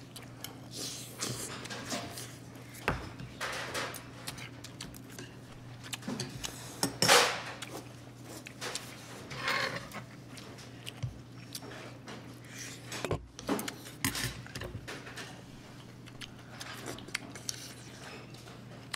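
Metal chopsticks and spoons clicking and clinking against stainless-steel rice bowls and dishes during a meal, with eating sounds. A steady low hum runs underneath.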